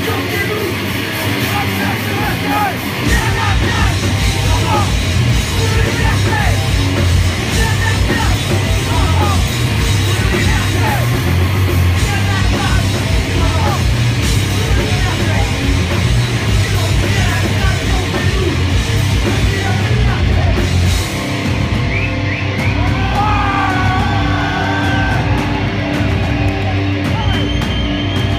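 Metal band playing live: distorted electric guitars, bass and pounding drums with a singer's vocals. About three seconds in the drums come in harder and the music gets louder; a little past two-thirds of the way through the beat thins and drawn-out guitar lines carry over it.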